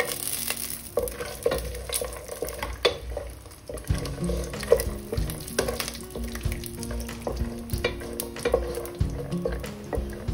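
Peanuts, cumin and mustard seeds sizzling as they roast in hot oil in a pan, while a wooden spoon stirs them with repeated scrapes and knocks against the pan.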